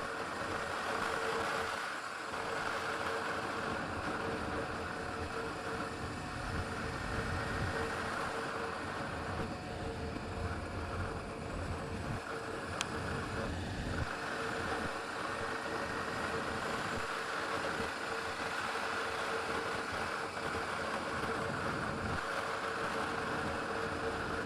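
Motorcycle engine running steadily under way, a constant even tone over a rushing noise.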